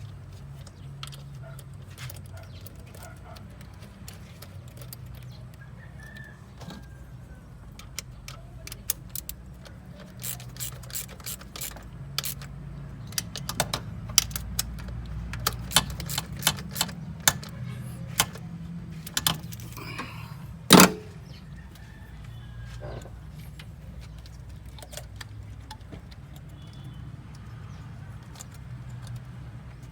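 Metal tools and parts clinking and clattering in quick, irregular clicks, with one loud knock about two-thirds of the way through, over a low steady hum.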